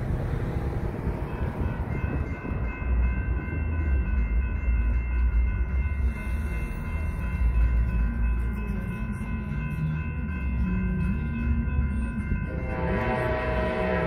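General Signals electronic crossing bells ringing steadily as the crossing gates lower, over a low rumble. Near the end an approaching Amtrak Pacific Surfliner locomotive's horn sounds.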